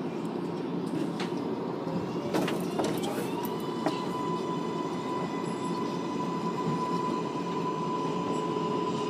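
R188 subway train running through a tunnel station, a steady rumble with a few sharp clicks about two to four seconds in. From about three and a half seconds in, a steady high whine sets in, joined near the end by a lower steady tone.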